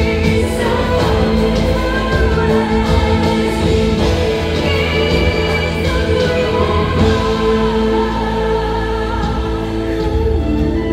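Live stage-show music: singing voices over sustained instrumental chords and a steady bass.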